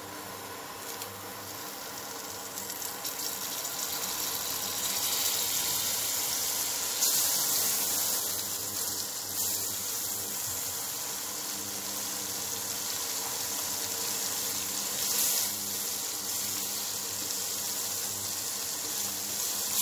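Butter melting and sizzling in a hot nonstick pan, the sizzle building over the first few seconds and then holding steady.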